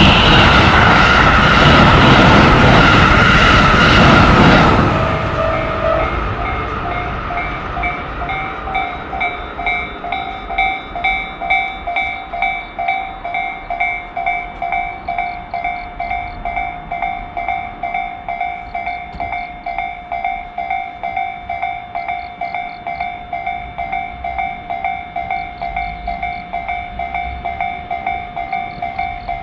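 Japanese railroad crossing bell ringing steadily, about twice a second, while a train rushes past for the first few seconds. After the train is gone the bell keeps ringing on its own.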